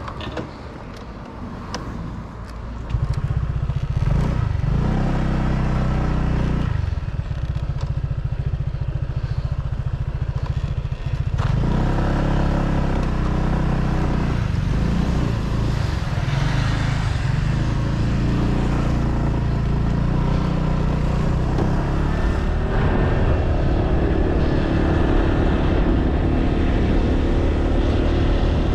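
Motorbike engine getting louder about three seconds in as the bike pulls away, then running at road speed, its pitch rising and falling again and again with throttle and gear changes.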